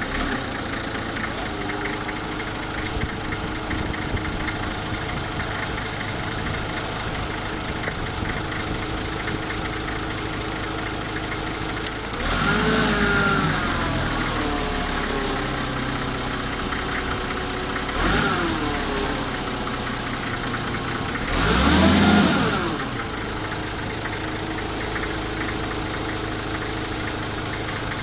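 A vehicle engine idling steadily, with three louder swells that slide up and down in pitch: a long one about twelve seconds in, a short one about eighteen seconds in, and the loudest about twenty-two seconds in.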